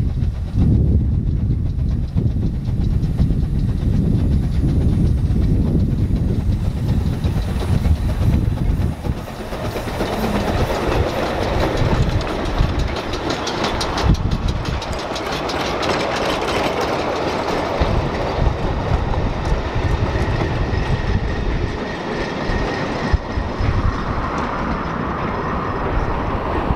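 Narrow-gauge steam train passing: a low rumble as the locomotive approaches, then the clatter of its four-wheeled wooden goods wagons rattling over the rail joints from about ten seconds in.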